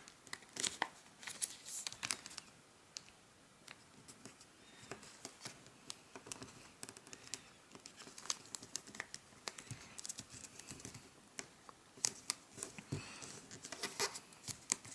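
A square of origami paper being folded and creased by hand: irregular rustles and crinkles with sharp little crackles as the fold is pressed down. There is a quieter stretch about three to five seconds in.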